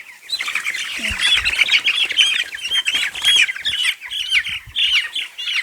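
A flock of young meat chickens (broilers) peeping and squawking loudly as they are caught by hand: many rapid, overlapping high-pitched calls, with a single low thump about a second in.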